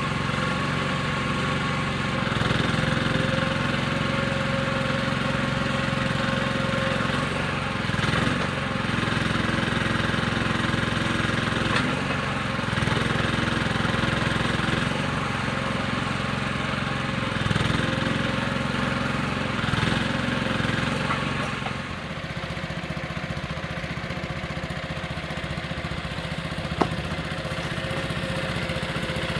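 Case 1816 skid steer's engine running steadily with a few brief swells in speed, then dropping to a lower, quieter idle about three quarters of the way through.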